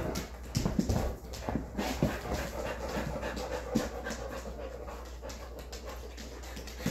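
Boxer dog panting in a run of quick, uneven breaths.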